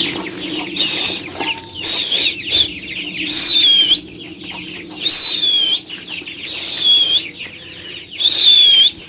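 Young broiler chickens peeping loudly: a run of about eight high calls, each sliding down in pitch, roughly one a second.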